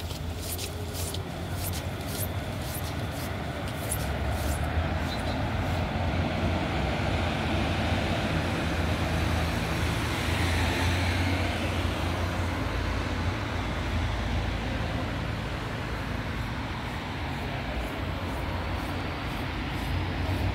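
Electric trolleybus passing close by. Its tyre noise and motor drone swell to a peak around halfway, with a short falling whine as it goes past, then ease off over a steady low traffic hum.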